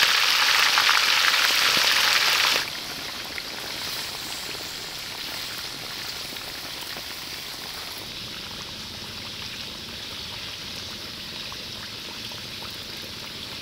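Frogs frying in hot oil with lemongrass: a loud, even sizzle that drops off sharply about two and a half seconds in, then a much quieter steady sizzle with fine crackling.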